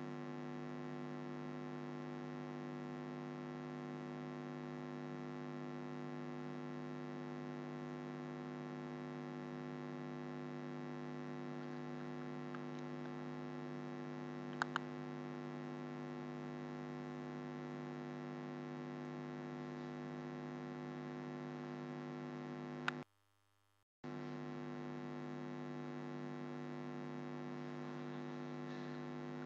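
Steady electrical mains hum with a stack of even overtones, broken by a brief total dropout about 23 s in. About 15 s in comes a quick double mouse click.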